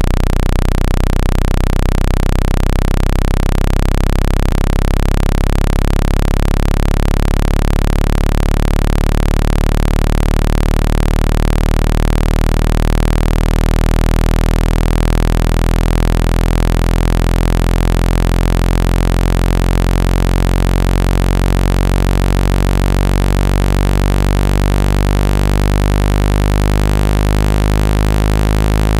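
Speaker water-eject tone: a loud, steady, low-pitched synthesized hum with many overtones, held without a break. It is meant to vibrate water droplets out of a wet phone speaker.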